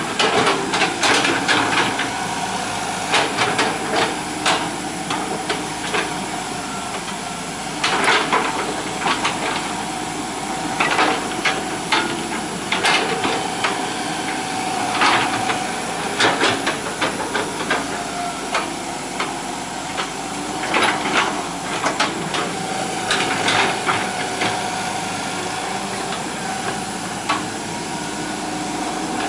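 Hitachi EX120 hydraulic excavator at work: a steady hiss and hum with a faint whine, broken by frequent clanks and knocks at irregular intervals.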